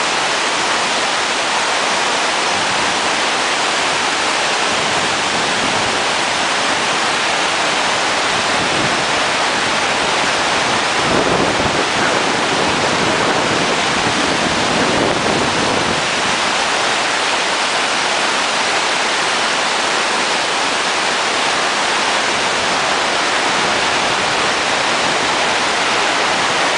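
Iguazu Falls: a loud, steady rush of falling water, with a deeper rumble swelling briefly about halfway through.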